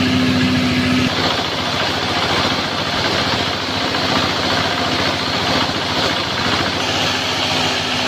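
Small stationary diesel engine running steadily, belt-driving a coffee grinder. The noise of coffee beans being milled runs under the engine.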